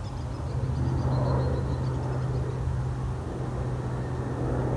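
Steady low engine hum, with faint high chirping in the first couple of seconds.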